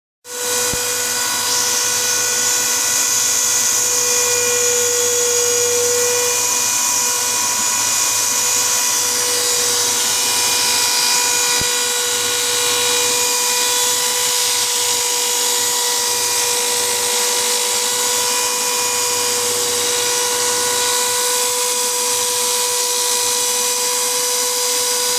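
Electric drill running steadily at one constant speed, used as a makeshift lathe to spin a wooden chair leg: an even whine with a hiss over it.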